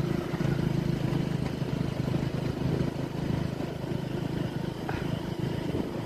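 Hero CD Deluxe motorcycle's small single-cylinder four-stroke engine running steadily while being ridden along a paved road.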